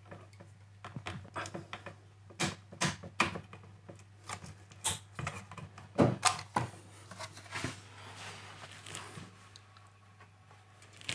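Irregular small plastic clicks and knocks as an RJ45 tester lead is moved between Cat6 keystone modules on a metal faceplate, the plug clicking in and the faceplate being handled; the loudest click comes about six seconds in.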